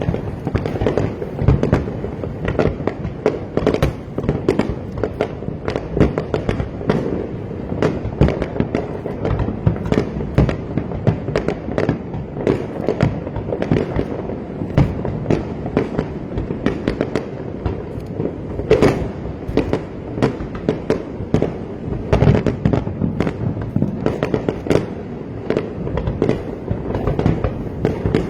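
Fireworks display: a continuous barrage of bangs and crackling bursts, several a second, with no pause.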